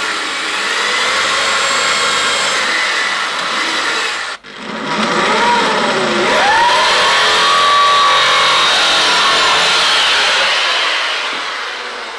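Electric drill boring pilot holes into a wooden bird nesting box: two runs with a brief stop about four and a half seconds in, the motor's pitch dipping and rising under load during the second run.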